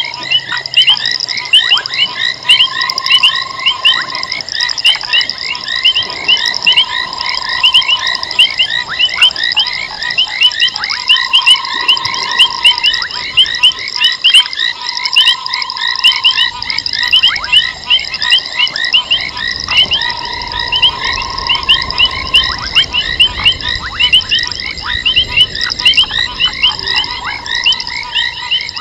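Dense night chorus of frogs at a waterhole: many fast, high-pitched calls overlapping, with a lower drawn-out note about a second long recurring every couple of seconds.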